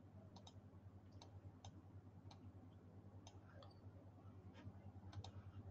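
Near silence: room tone with a low steady hum and about a dozen faint, irregular clicks.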